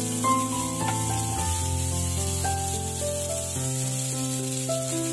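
Chopped onions and tempering spices sizzling in hot oil as a spatula stirs them in a wok-like pan, frying toward golden brown. Background music of held notes is louder than the sizzle.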